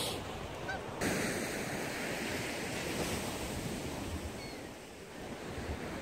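Waves on Lake Ontario washing and breaking against a seawall, with strong wind buffeting the microphone; the sound shifts abruptly about a second in.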